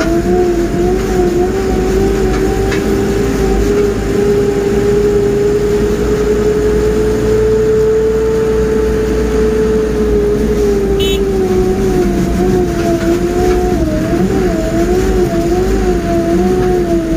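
Mobile crane driving, heard from inside its cab: a steady engine rumble with a constant whine that rises slightly in pitch and falls again, wavering near the end. A brief click about eleven seconds in.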